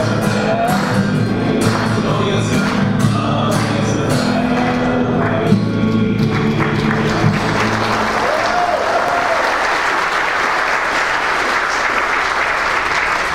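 A song with a sung melody over held accompaniment, the congregation clapping along in time. About seven seconds in the music ends and steady applause takes over.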